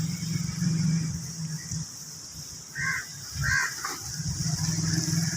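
Two short bird calls, a little over half a second apart, over a steady high-pitched hiss and a low rumble.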